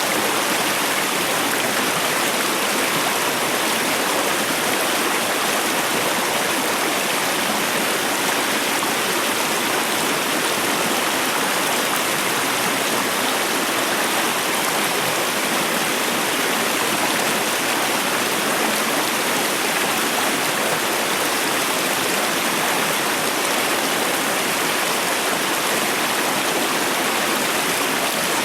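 A mountain trout stream's running water, a steady, unbroken wash of water noise.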